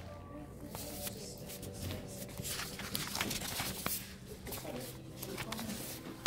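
Faint, indistinct voices in a room, with scattered short clicks and knocks.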